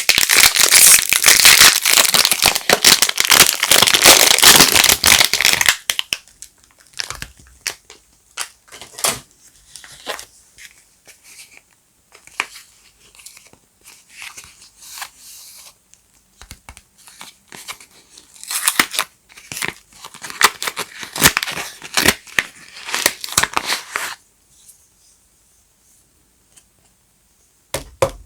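Soap wrapping being crinkled and torn open by hand. There is dense, loud crackling for about the first six seconds, then scattered crinkles and taps, another stretch of crinkling later on, and a single click at the end.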